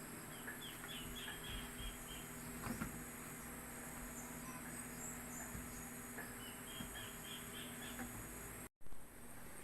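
Steady high-pitched drone of insects, with two quick runs of bird chirps, about a second in and again near seven seconds; the sound cuts out briefly near the end.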